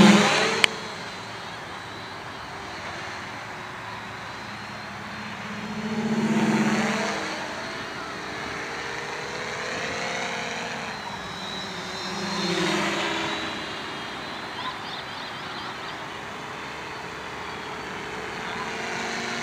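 Quadcopter with RCX 2214 950 KV brushless motors and DJI 10-inch props buzzing in flight. It is loud at the start and fades within a second, then swells louder and fades again about six seconds and about twelve seconds in, its pitch shifting as it passes. A single sharp click comes just under a second in.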